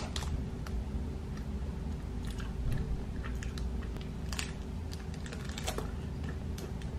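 Close-up chewing and biting of a chocolate-coated snack, with small scattered clicks and crackles from its plastic wrapper, over a steady low hum.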